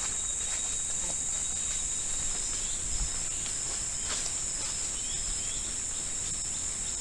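Rainforest insects keeping up a steady high-pitched drone. Faint short chirps repeat over it from a couple of seconds in.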